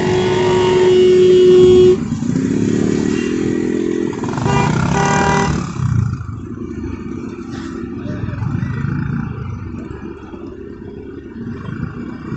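A vehicle horn sounds one steady held note that cuts off about two seconds in. Vehicle engines run underneath throughout, with a second, shorter horn-like blast about five seconds in.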